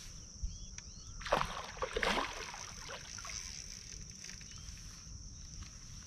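Water splashing and swishing for about a second, starting about a second in: a large hooked wallago catfish churning the surface during the fight.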